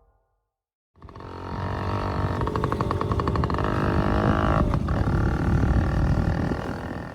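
Bajaj M80's small two-stroke engine starting up and revving after about a second of silence, with a brief drop in revs about halfway through before it eases off near the end.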